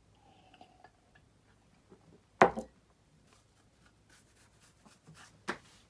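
Quiet handling sounds of a drinking glass: a sip, then a sharp knock about two and a half seconds in as the glass is set down on a wooden surface, and a second, softer knock near the end.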